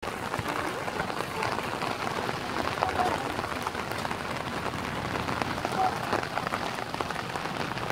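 Steady rain falling, with many sharp separate drop ticks over an even hiss.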